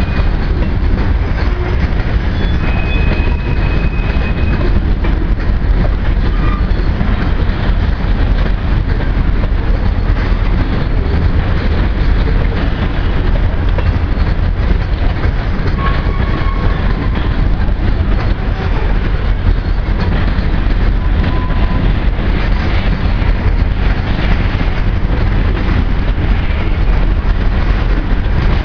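Heavy grain train's covered hopper cars rolling past close by: a steady, loud rumble of steel wheels on rail with clickety-clack over the joints and a few brief, faint wheel squeals.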